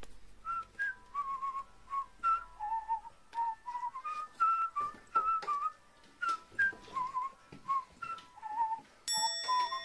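A whistled melody of short notes that step up and down, with light clicks and taps in between.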